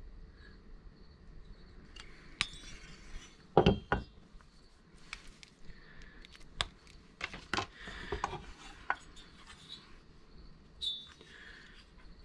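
Chainsaw cylinder and crankcase halves being handled and set down on a workbench: scattered hard clinks and knocks, the two loudest about three and a half to four seconds in.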